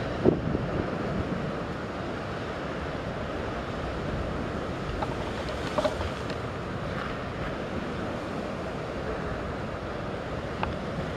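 Steady wind buffeting the microphone over choppy harbour water. A short knock comes just after the start and another about six seconds in.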